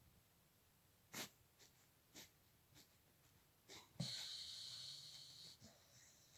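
Sleeping dog breathing through its nose: a few short, faint breaths, then about four seconds in a louder hissing exhale that lasts about a second and a half and fades.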